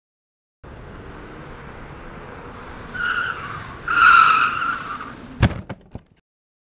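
Car engine running, then tyres screeching twice, the second screech longer and louder, cut off by one sharp thud and a few smaller knocks.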